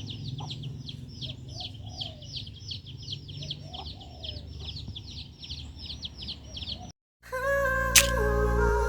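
A bird chirping rapidly, about three quick high chirps a second, with a few lower calls under it. About seven seconds in it cuts out, and music starts with a sharp click.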